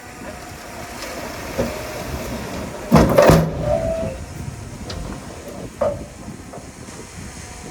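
Heavy earthmoving machinery working: a steady rumble with scattered metal clanks and knocks, the loudest a clattering bang about three seconds in followed by a brief squeal.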